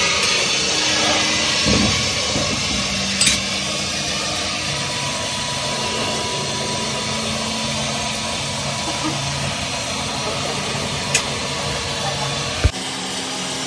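An engine running steadily with a hiss, and a few sharp metallic clicks; a single sharp knock near the end.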